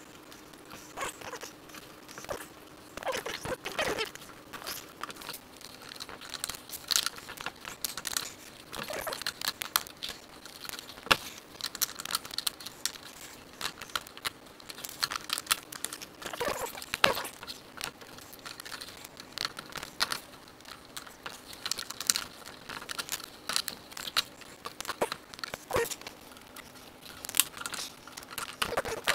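Handling noise from hands working on a board speaker enclosure and its wiring: irregular small clicks, taps and rustling, with one sharper knock about eleven seconds in.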